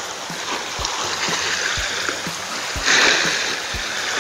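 Small sea waves washing against shoreline rocks, with one louder splash about three seconds in.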